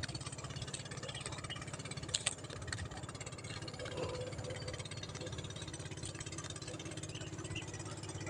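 An engine running steadily at low speed, an even low pulsing throughout, with a couple of sharp clicks about two seconds in.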